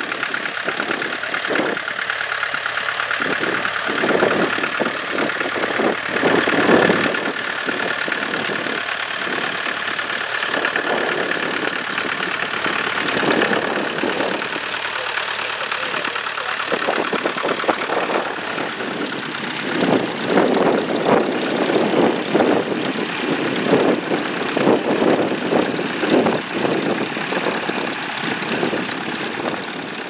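International B-series tractor engine running steadily while pulling a plough, surging now and then.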